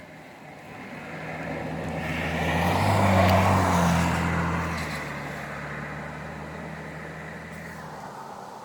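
A motor vehicle driving past: its sound swells to a peak about three seconds in and then fades slowly away.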